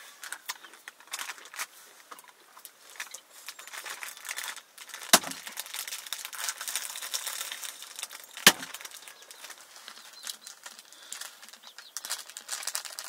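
A knife chopping meat on a wooden chopping block: two sharp chops about three seconds apart, over faint crackling and rustling.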